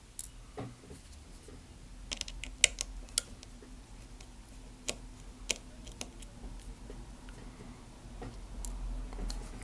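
Scattered light clicks and ticks, about ten at irregular intervals, from a tiny Phillips screwdriver and small screws being handled and set down on a work surface, over a faint steady hum.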